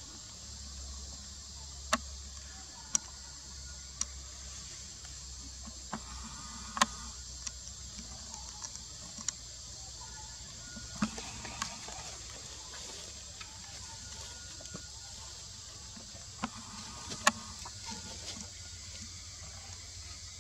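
Forest ambience: a steady high-pitched insect drone, with about a dozen sharp clicks and snaps at irregular intervals.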